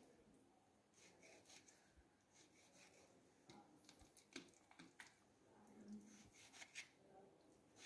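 Near silence, with faint scraping and a few light clicks of a kitchen knife cutting deep scores into raw chicken pieces.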